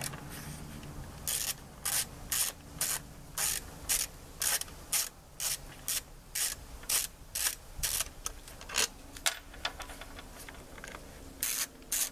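1/4-inch drive ratchet with a 10 mm socket clicking in short strokes, about two a second, as it backs nuts off the air cleaner assembly of a push mower's engine. The strokes pause for about two seconds near the end, then start again.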